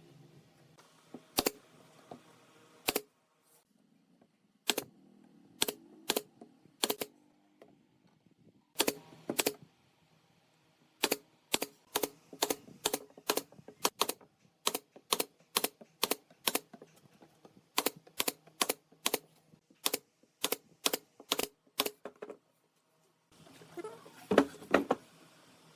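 Sharp knocks of a hand tool striking wood, in runs of about two to three blows a second, broken by short pauses.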